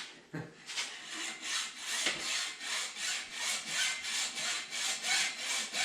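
Hacksaw cutting through a mountain bike fork's aluminium steerer tube in a saw guide, in quick even back-and-forth strokes, about four a second, starting about a second in.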